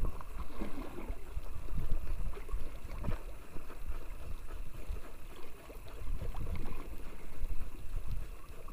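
Waves lapping and slapping against the hull of a small wooden boat drifting at sea, with an uneven low rumble of wind on the microphone.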